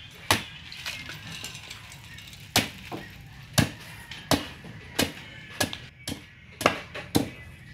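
Machete chopping the husk off a young coconut: a string of sharp chops, one about a second in, then after a pause of about two seconds chops coming every half second or so.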